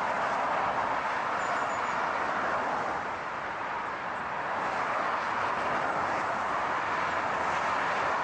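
Steady road and tyre noise of a moving car, an even hiss-like rumble with a slight dip about three seconds in.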